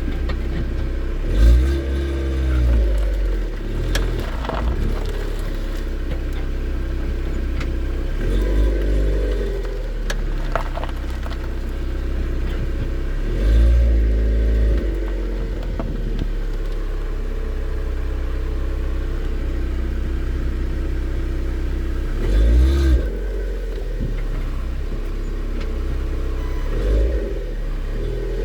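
Lada Vesta running on the road, a steady drone of engine and road noise. Five times there is a louder low swell with a rise and fall in pitch, and a few sharp clicks or knocks stand out. These are the kind of rear-suspension knocks that remained after the owner replaced the strut mounts and spacers.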